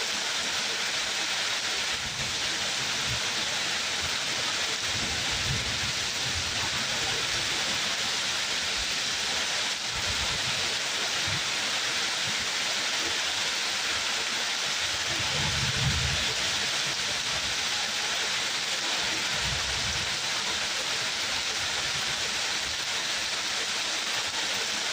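Steady rain falling, an even hiss, with a few brief low rumbles underneath.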